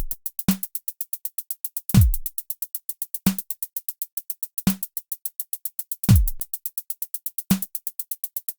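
Electronic drum-machine beat: fast, even hi-hat ticks about seven a second, with a few deep kick drums that drop in pitch and shorter pitched drum hits in between.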